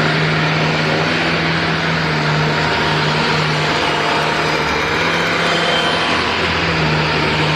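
Steady mechanical running noise with a constant low hum and a wide, even rush over it, unchanging throughout.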